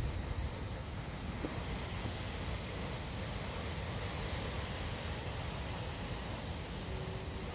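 Wind blowing steadily, buffeting the microphone with a low rumble under a rushing hiss.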